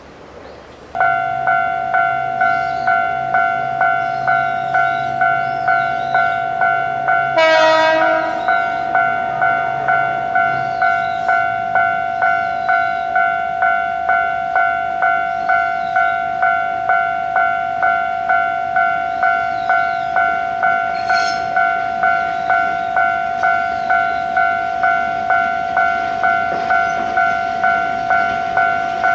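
Japanese level-crossing warning bell, starting about a second in and ringing steadily in two tones at about two strikes a second. A short train horn blast sounds about seven seconds in as the freight train's diesel locomotive approaches.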